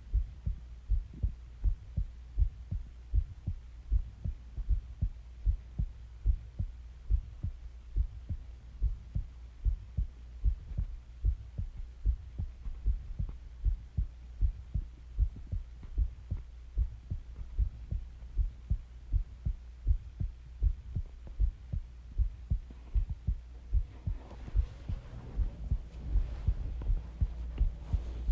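A person's heartbeat: steady, evenly spaced low thumps over a constant low hum. From about 24 seconds in, a faint hiss rises underneath the beats.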